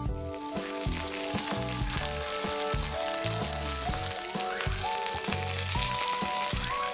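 Yaki udon sizzling on a hot cast-iron sizzle plate: a dense, steady hiss that breaks out right at the start as the noodles are tipped onto the heated iron. Background music plays along.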